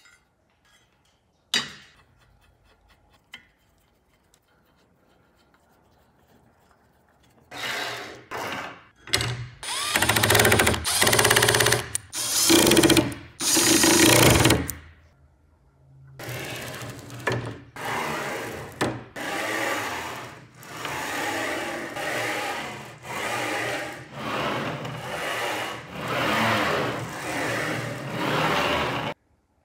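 Cordless drill-driver driving screws in several short runs that spin up and stop. Then about a dozen rhythmic strokes of roughly a second each: the router carriage's linear bearings rolling back and forth on steel SBR rails.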